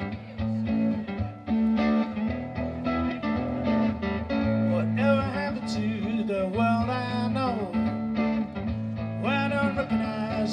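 Live ska band playing the instrumental opening of a song: electric guitar, bass and drums. About halfway through, a melodic line of sliding, falling notes comes in over them.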